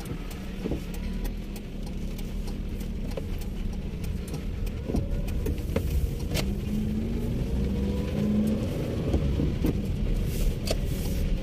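Car engine and tyres on a wet road, heard from inside the cabin: a steady low rumble with road hiss. The engine note rises as the car speeds up about seven seconds in. Scattered light ticks run through it.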